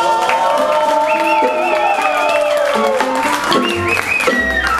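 Live band music: a trumpet plays a long held note and then quick wavering high notes over acoustic guitar, with people clapping along.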